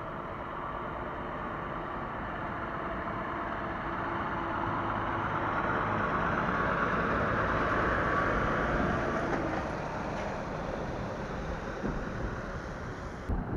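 Volvo articulated lorry with a curtainsider trailer driving past at low speed: diesel engine running and tyres hissing on wet tarmac, growing louder to a peak about seven or eight seconds in, then fading as it goes by.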